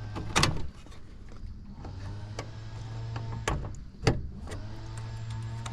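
Several sharp clicks and knocks from parts and wiring being handled at a heat pump's defrost control board, over a low electrical hum that comes and goes.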